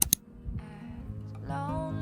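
Two short clicks, then soft background music fades in: a gentle, guitar-led song intro with sustained notes building up.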